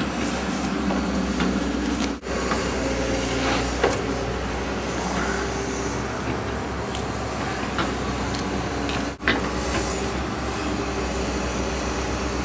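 Tracked hydraulic excavator's diesel engine running steadily, with a few short knocks.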